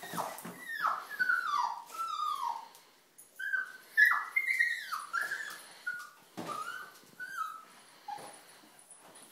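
Puppy crying with its head stuck in a cardboard tissue box: a run of high whimpering cries, each falling in pitch. Several sharp knocks come between them as the box bangs against the wall and floor.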